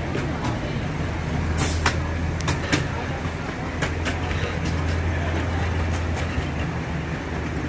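Miniature amusement-park train running along its track: a steady low engine drone, with scattered sharp clicks and clacks from the wheels and cars rolling over the rails.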